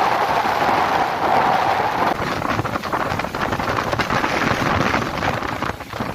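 Strong gusty wind blowing across the microphone, a loud steady rush with rapid buffeting that eases slightly near the end.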